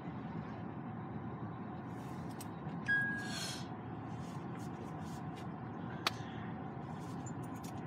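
Steady low rumble of a car's engine and tyres heard from inside the cabin while driving. A short high beep sounds about three seconds in, followed by a brief rustle, and there is a single sharp click about six seconds in.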